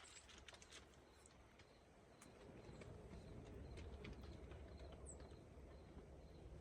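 Near silence: faint scattered ticks over a low background hum.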